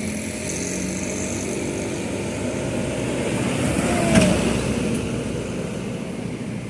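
A motor vehicle driving past on the road: its engine and tyre noise grow louder to a peak a little after four seconds in, with the pitch dropping as it goes by, then fade. No horn is sounded.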